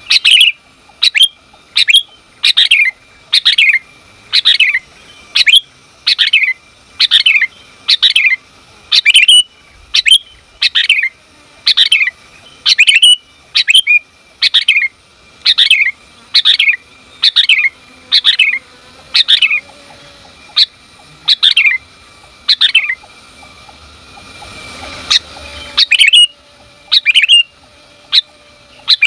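Sooty-headed bulbul (kutilang) giving a fast series of short, sharp calls, about two a second, which the uploader gives as a female calling to a male. The calls stop for about three seconds near the end while a hiss rises, then start again.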